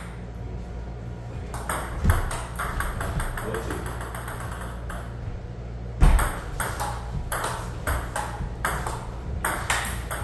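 Table tennis rally: the ball ticking back and forth off the paddles and the table top in quick runs of sharp clicks. A heavier thump comes about two seconds in, and another, the loudest sound, about six seconds in.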